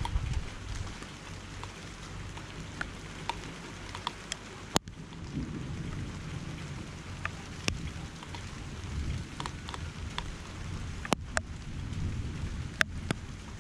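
Steady rain falling, with a low rumble underneath that swells and fades. Half a dozen sharp ticks of drops strike close to the microphone, the loudest about five seconds in.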